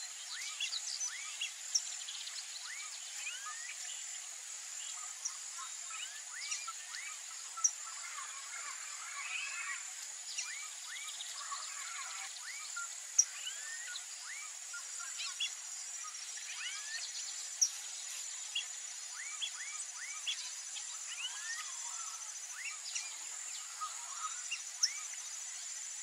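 Wetland ambience: a steady high-pitched insect drone with many short bird chirps scattered throughout, a few of them sharper and louder than the rest.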